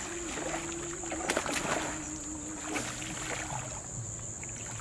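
Topwater frog lure being worked and splashing through reedy shallow water, with sharp splashes a little over a second in, over a steady high hiss.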